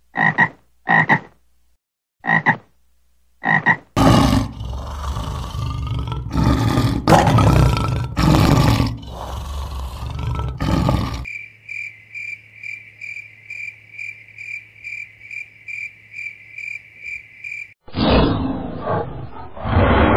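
A frog croaks four short times. Then a lion roars loudly for several seconds. A run of evenly spaced high chirps follows, about two or three a second, and near the end a dinosaur roar sound effect begins.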